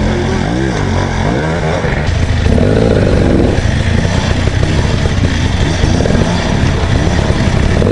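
Dirt bike engine revving up and down while riding a rocky trail, over a steady rush of noise; it gets louder about two and a half seconds in.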